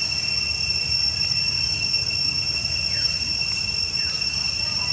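Steady, high-pitched insect drone of two unbroken shrill tones, over a low background rumble. A few faint short falling chirps come about three seconds in and again near four seconds.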